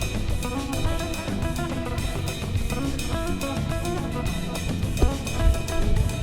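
Music with guitar and a drum kit keeping a steady beat.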